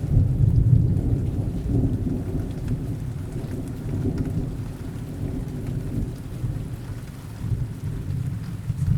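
Thunder rumbling over steady rain. The rumble is loudest about half a second in and dies away over several seconds, then swells once more near the end.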